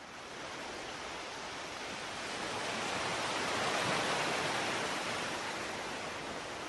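Ocean surf on a beach: a steady rush of waves that swells to a peak about halfway through and then eases off a little.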